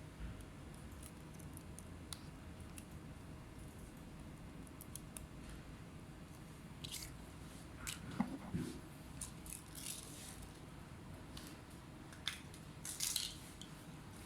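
Scattered small clicks, taps and scraping of hands working on an open laptop, handling its parts and tools, most of them in the second half, over a steady low hum.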